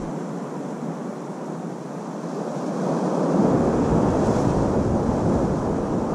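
Ocean surf washing against rocks, with wind blowing on the microphone; a low wind rumble comes in and the sound grows a little louder about three seconds in.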